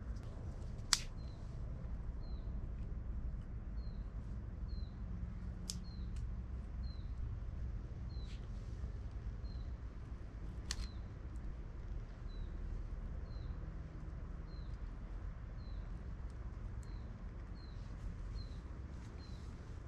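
A bird repeating a short, high, falling chirp about once a second, over a low steady background. A few sharp snaps cut in, the loudest about a second in, from a small wood fire being tended.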